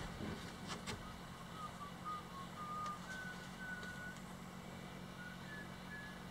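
A bird whistling a string of short, clear notes that step up and down and climb gradually in pitch, over a steady low hum, with a couple of knocks about a second in.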